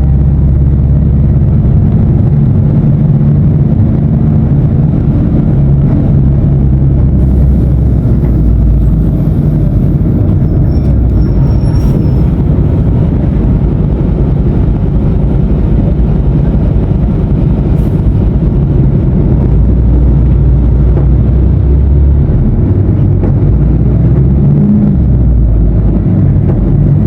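Diesel engine of a Mercedes-Benz OF-1519 BlueTec 5 bus running with a loud, low drone that shifts in pitch several times.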